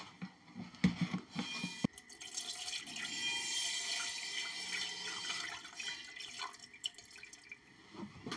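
A few clicks and a sharp knock, then liquid trickling and splashing for about five seconds: diesel being poured into the lathe's headstock gearbox to flush out the old oil.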